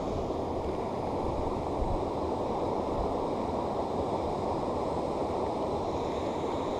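Steady rushing of water pouring over a mill weir, a constant even noise with no separate events.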